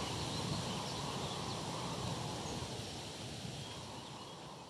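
Outdoor marsh ambience: a steady wash of noise with faint bird calls, slowly fading out.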